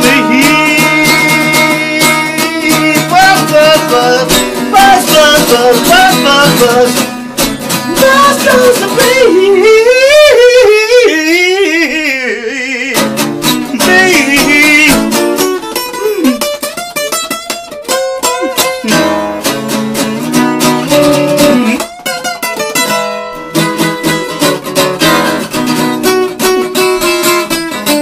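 Acoustic guitar strummed and picked through an instrumental stretch of the song, with a wavering wordless vocal line partway through.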